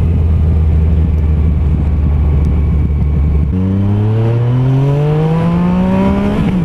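Yamaha MT-09 Tracer's three-cylinder engine heard through an aftermarket Giannelli full exhaust system from on the bike. It runs at a steady cruise, then, about halfway through, pulls through a gear under acceleration, its note rising steadily.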